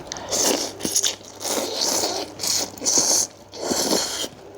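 Close-up eating sounds: a person biting and chewing a spicy seafood salad with soft instant noodles, in a run of short, irregular bursts.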